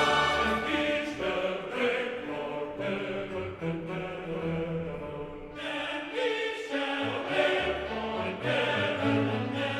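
Background music: choral or chant-like singing over sustained instrumental chords.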